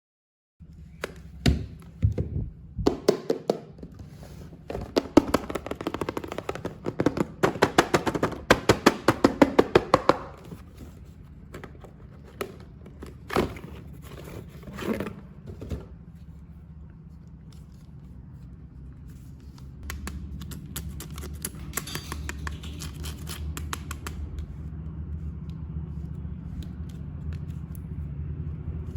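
Hands handling plastic toy-figure packaging and parts close up: a run of sharp clicks, knocks and scrapes that quickens to several clicks a second, then thins out to a few taps. A low steady hum comes up near the end.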